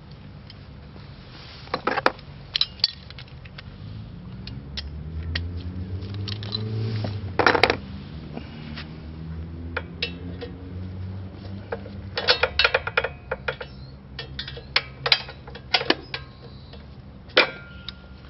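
Hand tools and small metal parts clinking and clattering against each other while the motorcycle's chain guard is worked off, in scattered clicks with a few louder clusters. A low hum with a shifting pitch swells and fades in the middle.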